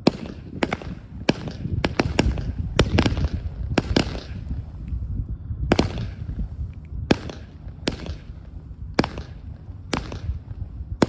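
F2 consumer fireworks going off: a string of sharp bangs at irregular spacing, roughly one to two a second, over a low rumble.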